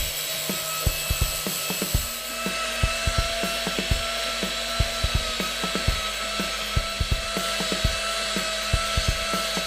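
Small hand-held power carving tool running with a steady whine while its spinning attachment works wood, rasping with irregular sharp ticks several times a second as it bites.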